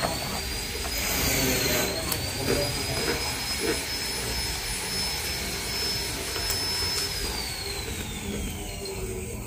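A motor running with a high steady whine that rises as it starts and falls away over the last couple of seconds, over a low rumble.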